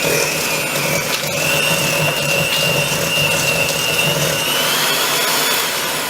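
Electric hand mixer running steadily, beating an egg yolk into creamed butter and sugar for cookie dough. Its motor whine steps up in pitch a couple of times and winds down at the very end.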